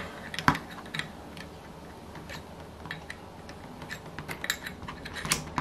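Light, irregular metal clicks of a small hand tool against the intake pipe and manifold of an OS FF-240 Pegasus model engine, as a press-fit intake pipe is worked loose. One sharper click comes about half a second in, and the clicks come more often near the end.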